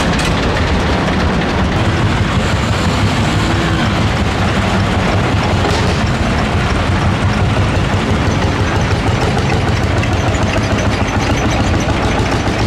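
Several vintage tractors driving past with their engines running, a loud, steady low engine sound with a fast pulse.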